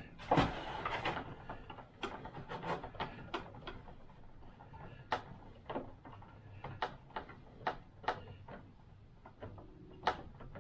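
Light clicks and taps of small parts being handled and fitted by hand, coming irregularly about every half second, with a slightly louder knock about half a second in.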